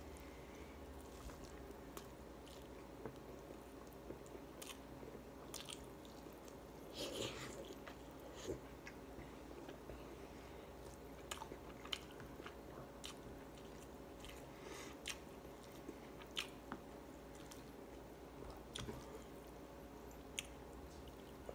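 Close-up chewing and mouth sounds of a man eating rice and chicken by hand, with many short sharp clicks and smacks scattered through, the loudest about seven seconds in. A faint steady hum runs underneath.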